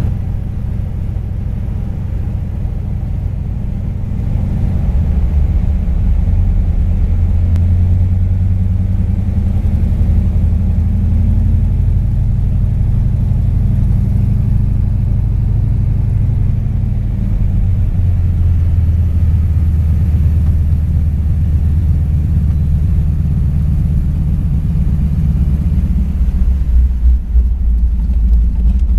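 De Havilland Beaver floatplane's engine and propeller running with a steady low drone, heard from inside the cabin during a water landing. It gets a little louder a few seconds in and its pitch shifts about two-thirds of the way through. Near the end, water spraying off the float adds to it.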